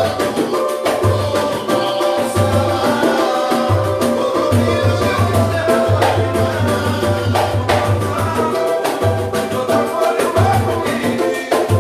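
Samba band playing: dense, busy percussion over a pulsing low bass line, with pitched melody instruments and some singing.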